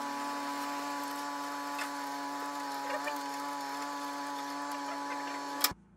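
DeWalt benchtop thickness planer running with no board feeding through it: a steady, even motor whine that cuts off abruptly near the end.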